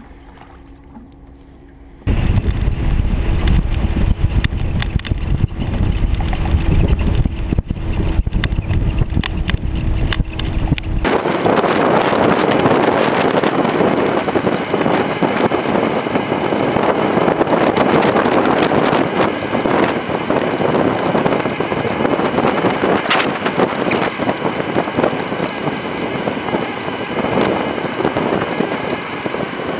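Aluminium fishing boat running across the water on its 40 hp outboard, with wind rushing over the microphone and water hissing along the hull. The noise starts suddenly about two seconds in, deep and buffeting at first, and turns into a brighter, steady rush about eleven seconds in.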